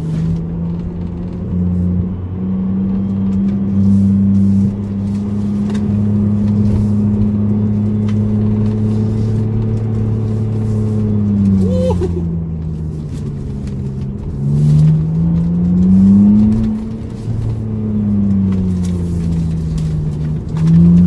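BMW E85 Z4's straight-six engine heard from inside the cabin while driving. The engine note holds steady, then drops away about halfway through. It climbs again to its loudest as the car accelerates about three-quarters in, then falls off once more before rising near the end.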